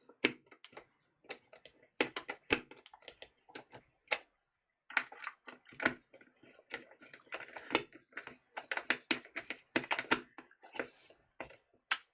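Irregular clicks and knocks of a plastic lamp being handled and fitted back together, coming in clusters with a short pause about four seconds in.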